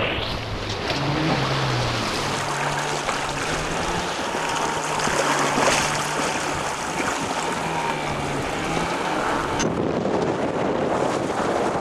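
Strong wind buffeting the microphone and water rushing along the hull of a small sailboat, the Chrysler 22, heeling under storm jib and reefed main in strong wind; a faint low drone comes and goes underneath.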